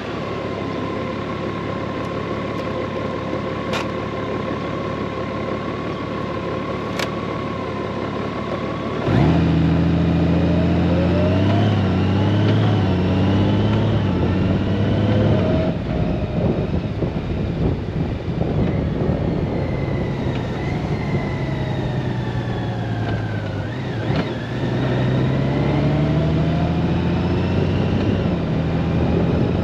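Honda Gold Wing motorcycle running on the road with steady engine and road noise. About nine seconds in it gets louder and the engine pitch rises as the bike accelerates, then eases off, and rises again near the end.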